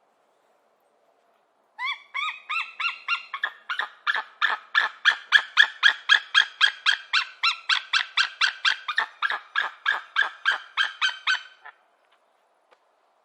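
An eagle calling: a long run of short, high, piping notes, about four a second, starting about two seconds in. The first few notes slur upward, the run grows louder through the middle, and it stops near the end.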